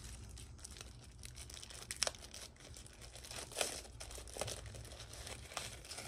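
Packaging crinkling and crackling as it is handled and opened, with several sharper crackles.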